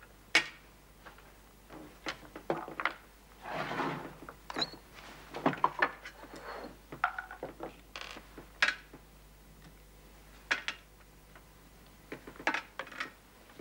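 Scattered small clicks, clinks and knocks of objects handled at a table: sweets being picked out of a tall glass jar with a metal utensil and set down on a silver tray, with a brief rattle of sweets shifting in the jar.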